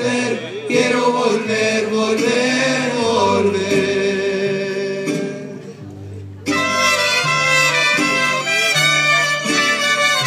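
Mariachi band of guitars and violins playing an instrumental passage between sung verses. A long held melody note eases downward over the first few seconds, the music thins out briefly a little before the midpoint, then the violins come back in loud and bright at about six and a half seconds.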